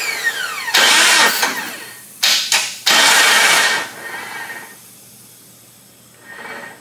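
Jeep TJ's starter motor bumped in several short bursts, turning the 4.0 straight-six over without it firing. A falling whine in the first second as the starter spins down. The bursts stop about four seconds in. The owner says the starter needs replacing.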